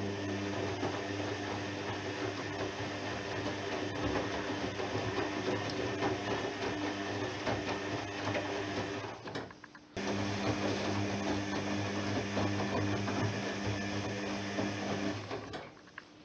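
Privileg 3020 washing machine's motor turning the drum in the wash phase, with laundry tumbling and sloshing. It runs steadily, stops briefly about halfway, starts again and stops shortly before the end.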